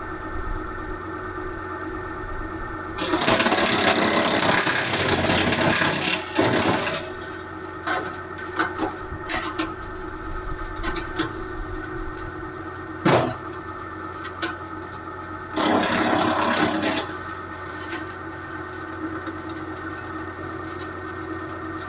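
Wood chipper running steadily, with two loud spells of branches being chewed through: one about three seconds in lasting nearly four seconds, and a shorter one near the end. Scattered knocks and rattles come in between.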